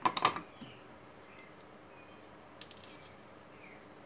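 Brief clatter of small hand tools and parts being picked up off a workbench, a quick run of sharp clicks at the start, then a few lighter clicks a little before three seconds in.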